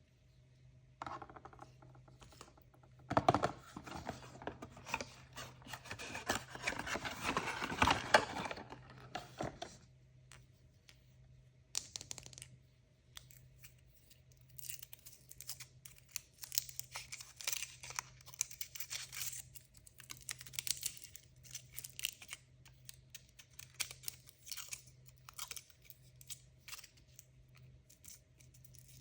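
Surprise-toy packaging being torn open and crinkled by hand. There is a dense, loud stretch of tearing and crinkling from about three to ten seconds in, then lighter, scattered crinkling and rustling.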